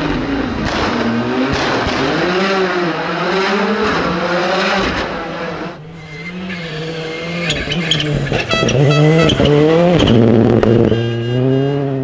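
Rally car engines revving hard, the pitch rising and falling over and over through gear changes as the cars accelerate through corners. About six seconds in the sound breaks off and a second car picks up, revving louder as it comes by, with short crackles among the revs.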